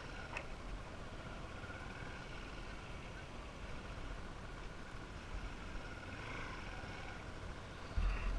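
Motorbike running at a steady speed along a rough dirt track, its engine mixed with wind and road noise, with a low thump near the end.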